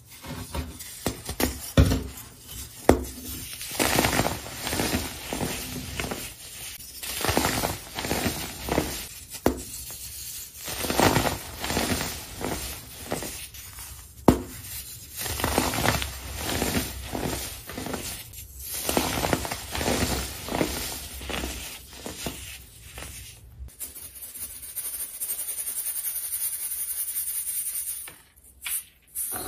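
Pressed chunks of dyed baking soda crushed and crumbled by hand: irregular dry crunches and crumbling, with a few sharp snaps. Near the end it changes to a steady soft hiss of powder sifted through a mesh sieve.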